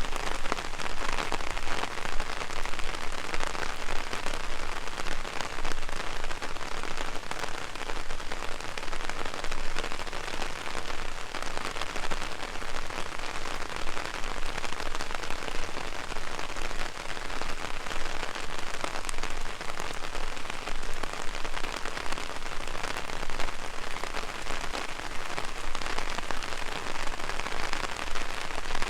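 Heavy rain falling on an umbrella overhead: a dense, steady patter of many small drop impacts.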